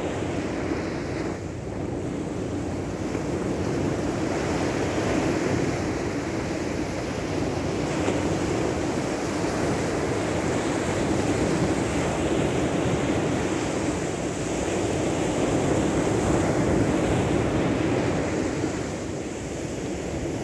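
Steady rushing noise of wind and surf, swelling and easing slowly over a few seconds at a time.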